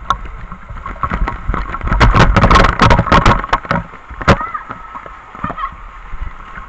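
Water spraying and splashing down hard onto people, a dense crackling run of splashes loudest from about two to four and a half seconds in, over a steady rush of falling water.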